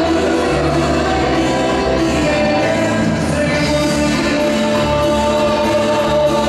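A live band playing tropical dance music, with singing over a repeating bass line.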